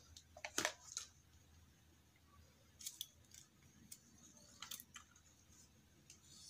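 Faint, sparse handling sounds: a few short clicks and light rustles of scissors and thin paper strips being moved on a cutting mat, in pairs about a second in, near three seconds and near five seconds.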